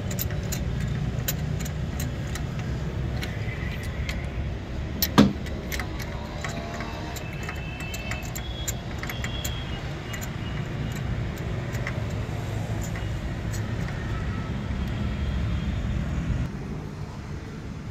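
Metal tools clicking and clinking as new spark plugs are fitted into a Maruti Eeco's engine, over a steady low rumble, with one louder clack about five seconds in.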